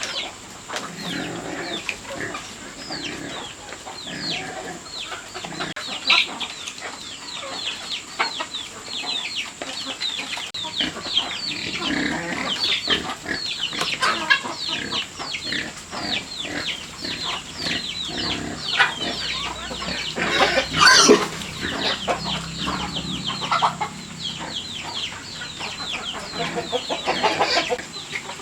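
Chickens calling: a continuous run of many short, high, falling peeps in quick succession, with a sharp knock about three quarters of the way through.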